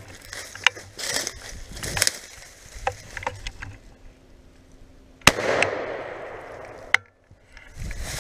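A Remington 870 pump-action shotgun fires once about five seconds in: a single sharp crack whose echo trails off for about a second and a half. Before it come rustling and handling noise as the gun is swung up toward the treetops.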